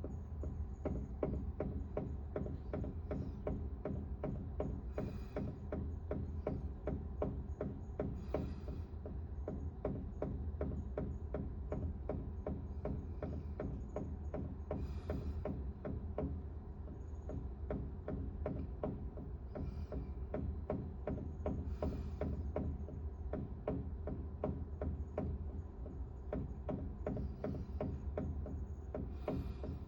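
Water-heater piping knocking in a fast, steady rhythm like a pulse, over a constant low hum: an abnormal noise that sets in after the heater has been in use for a while.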